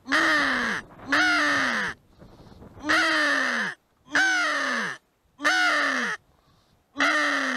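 Crow call (a hunter's crow decoy caller) sounding a series of six loud, harsh caws, each under a second long and falling in pitch, repeated evenly about every second and a quarter to draw crows in.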